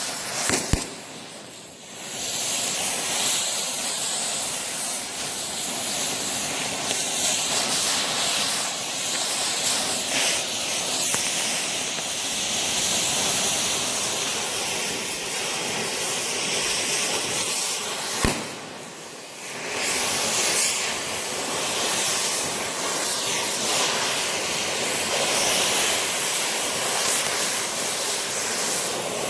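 Cutting torch hissing steadily with a crackle as it burns into the steel of a safe. Twice the hiss drops off for about a second, each time right after a sharp click.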